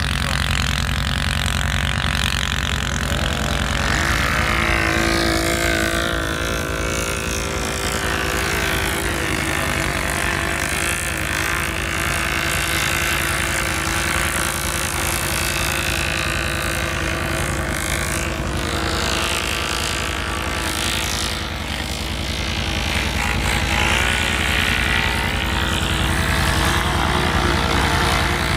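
ATV engine running continuously, its pitch rising and falling a few times as the quad is driven through deep snow.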